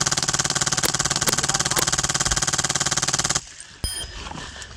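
Polarstar HPA-powered airsoft Stoner 96 LMG firing a long full-auto burst of rapid, evenly spaced shots, which stops abruptly about three and a half seconds in.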